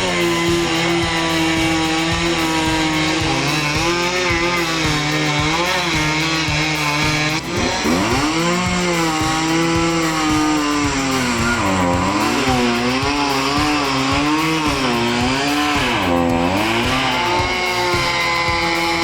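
Chainsaw running at high revs through a cut, its pitch sagging and recovering several times as the chain loads up in the wood, under background music.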